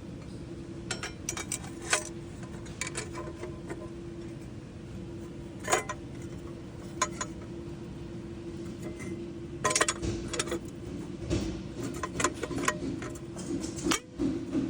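Scattered metallic clinks and knocks of parts and tools being handled during the transfer case work, most frequent in the second half, over a steady hum.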